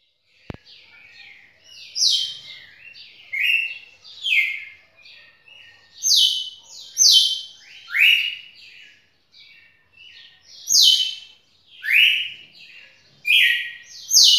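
A red-cowled cardinal (galo-de-campina) singing: a steady run of loud, clear whistled notes, many falling in pitch, about one each second, with softer notes in between. A single sharp click about half a second in.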